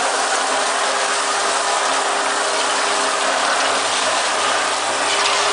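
Mini rotary bottle-washing machine running: a steady mechanical noise under a dense hiss, with a constant low hum throughout.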